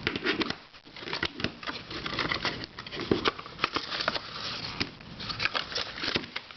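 Irregular clicking and rattling of plastic puzzle cubes being handled and turned, many small clicks in quick succession.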